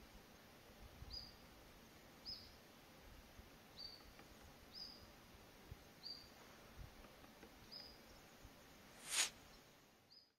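Faint, short, high bird call notes, repeated about once every second or so. A brief loud whoosh comes near the end.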